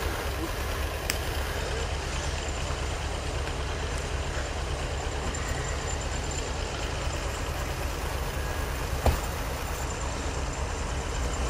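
Vehicle engine running steadily with a deep rumble, and a single sharp knock about nine seconds in.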